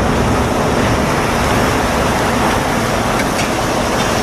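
Articulated lorry (tractor unit pulling a box trailer) driving slowly past: a loud, steady rumble of engine and road noise.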